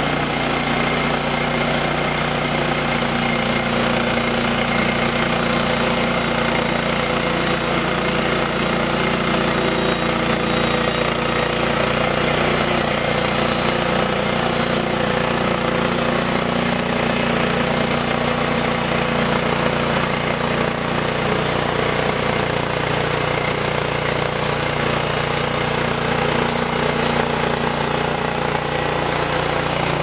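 Portable bandsaw mill's petrol engine running steadily under load while its band blade cuts lengthwise through a timber beam, with a continuous high hiss from the blade in the wood.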